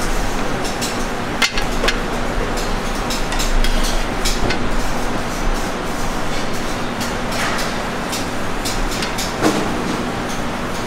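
Working restaurant kitchen background: a steady hum of machinery such as ventilation, with frequent sharp clinks and clatter of utensils and dishes.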